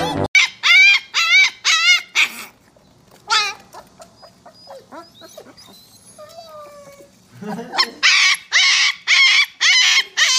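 Husky puppies yipping and crying in high, wavering calls, a quick run of several at a time, with fainter whimpers in a quieter stretch in the middle.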